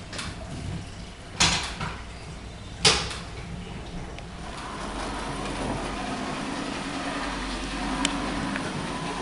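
Two sharp knocks, then a model railway train running along its track, a steady whirring rumble that sets in about halfway through.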